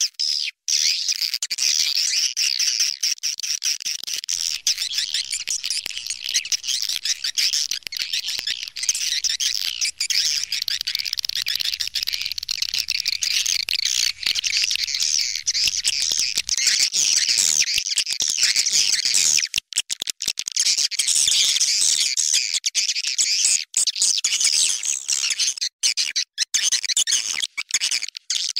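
Recorded swiftlet lure call: a dense, continuous chatter of high twittering chirps from edible-nest swiftlets, played to draw the birds into a swiftlet house. It is broken by many brief gaps.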